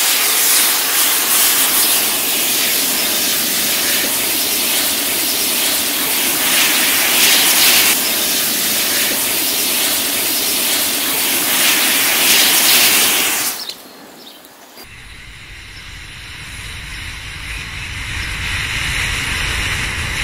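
Hundreds of packed match heads catching in a chain and flaring together: a loud, continuous fizzing hiss. It cuts off suddenly about 13 seconds in and gives way to a quieter low rumble that slowly builds.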